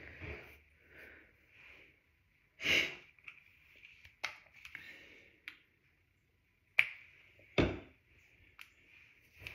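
Handling noises while hair is being styled: soft rustling, a short scuffing burst, several sharp clicks, and a heavier thump late on.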